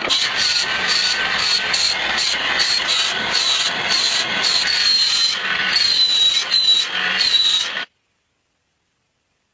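A power tool grinding the steel of a knife blade: a harsh, continuous noise with a high, wavering whine. It cuts off abruptly about eight seconds in, leaving silence.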